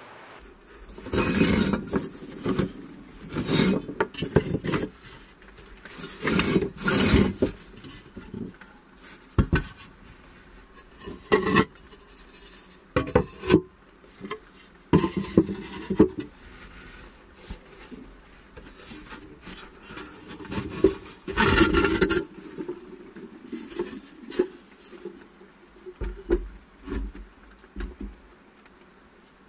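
Fired clay pottery being lifted out of a brick kiln: ceramic plates and lids scrape and knock against each other and the brick floor in irregular bursts, the loudest about a second in, around seven seconds and about twenty-two seconds in.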